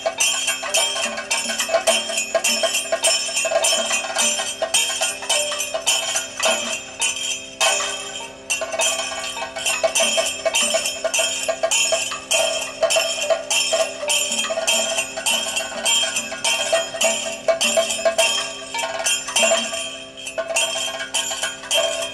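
Kathakali percussion: chenda and maddalam drums played in rapid, dense strokes under the steady metallic ringing of ilathalam cymbals and the chengila gong, with brief lulls about eight seconds in and near the end.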